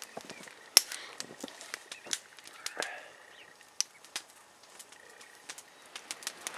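A wood fire crackling, with irregular sharp pops, the loudest just under a second in. A faint soft gray jay call comes about three seconds in.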